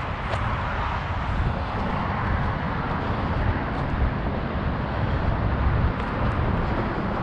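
Steady low rumble of outdoor urban background noise, with a few faint clicks.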